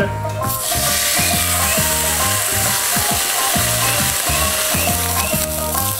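Steak sizzling on a hot non-stick griddle. The sizzle comes in about half a second in and then holds steady, over background music with a steady beat.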